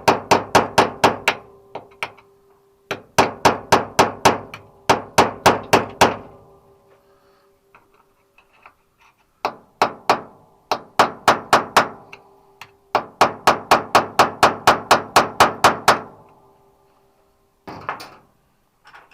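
A hammer rapidly tapping a steel punch against a snapped-off screw in a car's sheet-metal windshield cowl, in six quick runs of about five sharp metallic taps a second, the body metal ringing under the blows. The taps are knocking the broken screw sideways to loosen its rusted bond.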